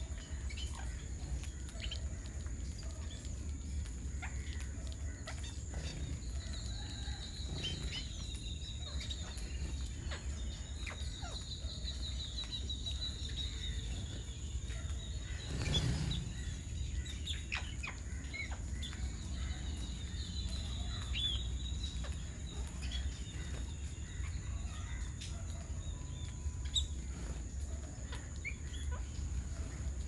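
Birds chirping and calling over a steady low background hum, with a fast high trill running for several seconds twice and a single louder brief noise about halfway through.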